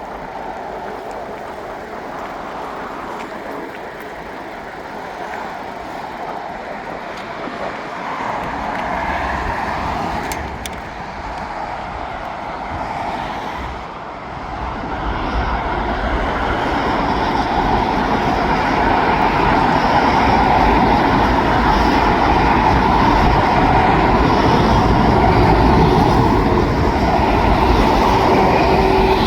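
Heavy vehicle engines running, a steady low rumble that swells and grows louder from about halfway through, then holds.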